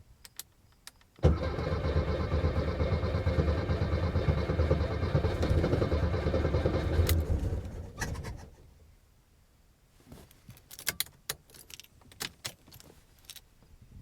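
Volkswagen engine cranking on the starter in a hard start: a loud, pulsing run that begins abruptly about a second in, lasts about six seconds, then dies away. A few sharp clicks and knocks follow near the end.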